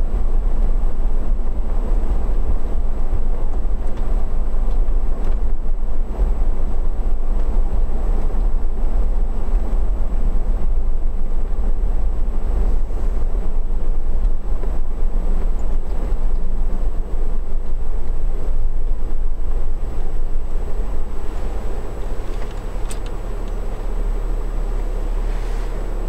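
Inside a moving car's cabin: a steady engine and road rumble with the heater fan blowing. The rumble eases a little near the end.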